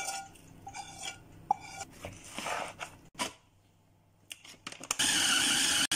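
A spoon scrapes and clinks against a bowl as spices are mixed into raw mince. Near the end an electric food chopper runs loudly for about a second, grinding the mince, and cuts off suddenly.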